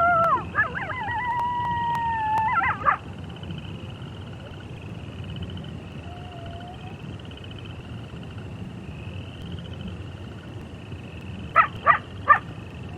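Coyote howling: a long, wavering call that ends sharply about three seconds in. Steady cricket chirring continues underneath. Near the end come three quick, short yips.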